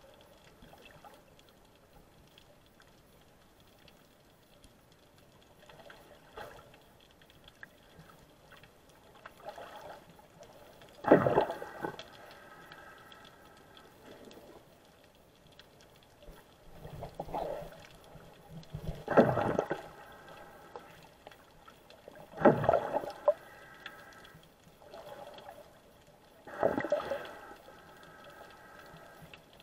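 Muffled water noise picked up by a submerged action camera. It rises to short bursts of rushing, bubbling water every few seconds, four of them loud and each about a second long, with fainter ones between.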